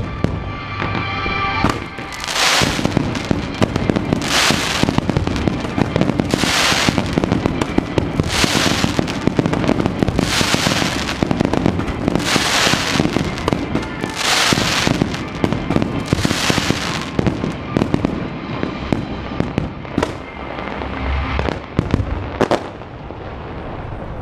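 Fireworks going off in a dense barrage of bangs and crackling, with a surge of hissing crackle about every two seconds, thinning out near the end to a few scattered sharp bangs.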